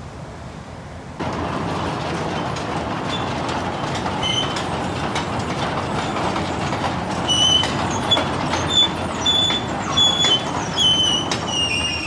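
Steady, loud industrial mill noise that starts suddenly just over a second in. It carries repeated high metal-on-metal squeals that thicken in the second half, and the last squeal slides downward at the end.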